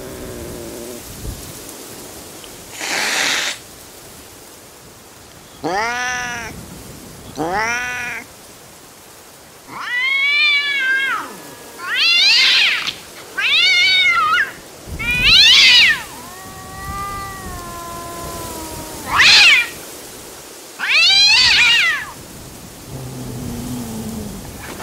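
Angry cat hissing once, then giving a run of about nine yowling calls that rise and fall in pitch, several with a wavering tremble, and one longer, lower drawn-out call in the middle of the run.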